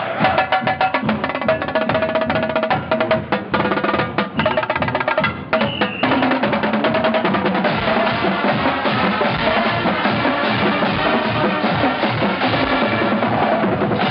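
Marching band drumline playing a fast cadence on tenor drums and other drums. After a short break about six seconds in, the full band's brass and winds come in and play on over the drums.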